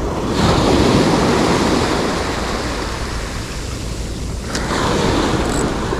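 Small surf waves breaking and washing up the beach close by, swelling about half a second in and again near the end.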